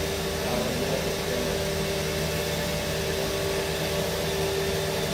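Steady hum of milking-shed machinery: a constant low drone with a held tone over an even hiss.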